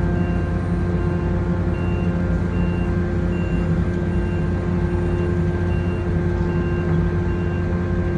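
Steady drone of ferry diesel engines and shipboard machinery, with a faint high-pitched beep repeating about every 0.7 seconds.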